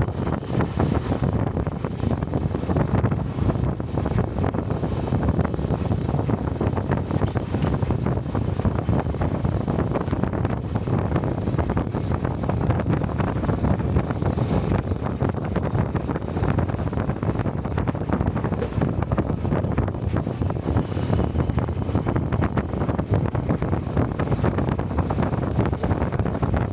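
Steady wind rushing over a helmet-mounted microphone while riding a Honda Cub-series 125 cc motorcycle, with the bike's engine and road noise underneath.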